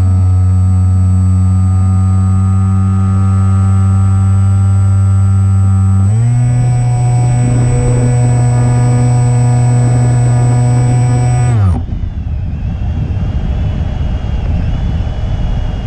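Electric motor and propeller of an E-flite Opterra flying wing running at steady throttle, with a thin high whine above the steady prop tone. The pitch steps up about six seconds in as the throttle is raised, then the motor cuts off near twelve seconds. After that only wind rushes over the onboard camera microphone as the wing glides.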